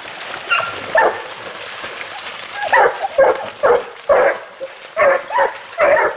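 Pack of hunting beagles baying in full cry on a chase: a few single calls at first, then a quick run of overlapping bays about two a second from about three seconds in.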